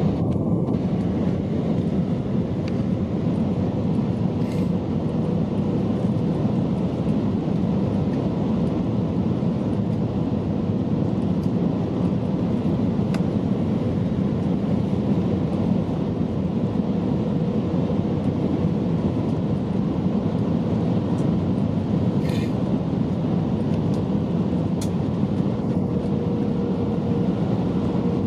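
Steady airliner cabin noise on approach to landing: jet engines and rushing air heard from a window seat over the wing, with the flaps extended.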